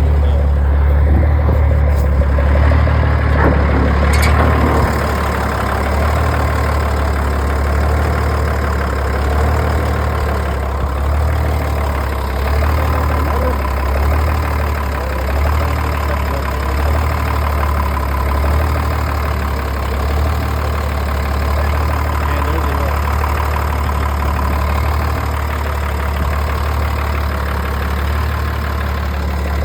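The M35A2 deuce and a half's turbocharged multifuel diesel engine idling steadily and loudly through its straight-piped exhaust with no muffler. A couple of faint clicks come about two and four seconds in.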